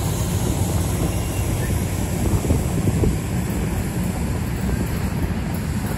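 NJ Transit passenger coaches rolling slowly past on the track: a steady low rumble of wheels on rail, with wind buffeting the microphone.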